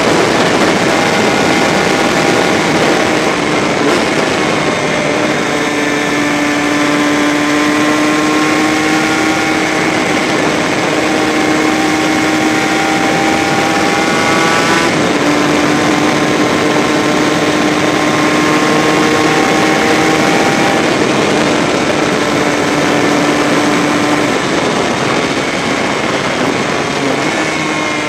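Honda RS125 two-stroke single-cylinder racing engine running hard at speed, heard from onboard over a strong rush of wind. Its pitch holds fairly steady with a brief break about halfway, and shifts near the end.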